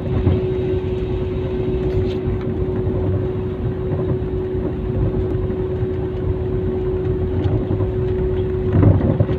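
Airliner's jet engines heard from inside the cabin over the wing, a steady rumble with a steady mid-pitched hum, as the plane rolls along the ground before takeoff.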